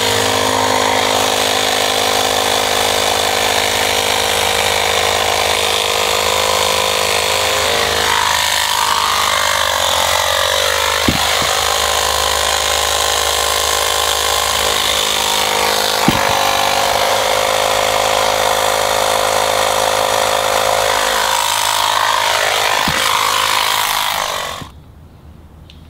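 Small 12-volt Slime portable air compressor running steadily while inflating a freshly mounted rear motorcycle tire whose bead will not seal. Its pitch wavers now and then, there are a few sharp knocks, and it cuts off near the end.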